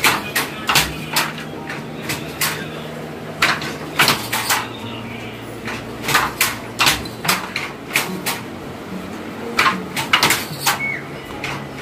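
Wooden handloom knocking as the weaver beats up the weft and throws the shuttle: sharp wooden clacks, singly and in quick clusters, at an uneven pace of roughly one burst a second, over a low steady hum.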